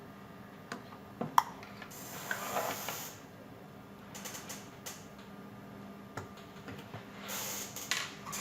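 Sharp clicks and small knocks of tools on a motherboard, with two short hissing stretches, as old capacitors are desoldered.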